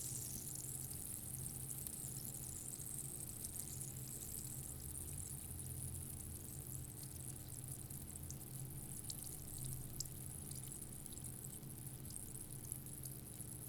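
Sparkling water fizzing: a steady high hiss of bubbles with scattered tiny pops, slowly fading.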